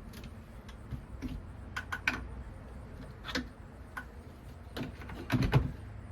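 Scattered light clicks and knocks of tools and plastic track pieces being handled, with a louder cluster of knocks near the end, over a steady low hum.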